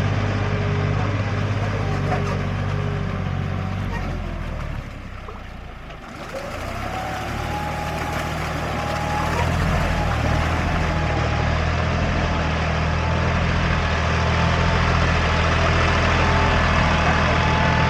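Tractor engine running steadily with a low hum and a thin whine above it. The sound drops away briefly about five seconds in, then comes back at a steady level.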